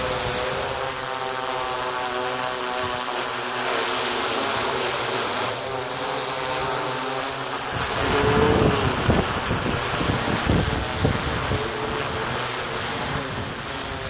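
Yuneec Q500 quadcopter's four rotors humming with a steady pitch as it hovers and flies overhead. About halfway through, gusts of wind start buffeting the microphone and grow louder than the rotor hum.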